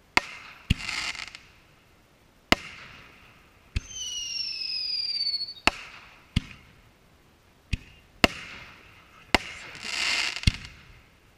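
Aerial firework shells bursting: about ten sharp bangs at uneven intervals, two of them followed by about a second of crackling. A whistle falls in pitch for about a second and a half around the middle.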